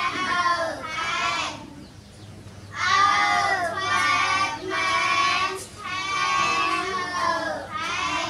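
A young child singing unaccompanied in a high voice, in several drawn-out phrases with short breaks for breath.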